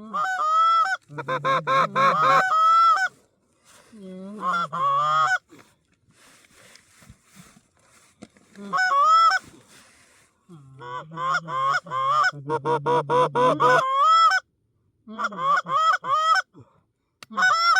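Goose honking and clucking in quick runs, broken by short pauses.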